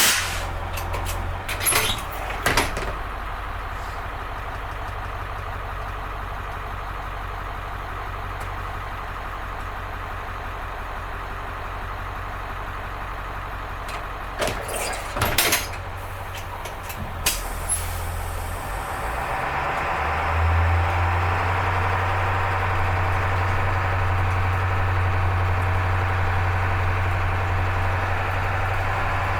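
School bus diesel engine running steadily, with a few sharp clicks and knocks; about twenty seconds in the engine grows louder and holds there.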